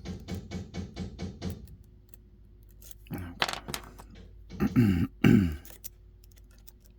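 Lock pick clicking rhythmically against the pins inside a Dom 333RN pin-tumbler lock, about five light clicks a second, stopping after a second and a half. Past the middle a man's voice makes two loud groans that fall in pitch, the loudest sounds here.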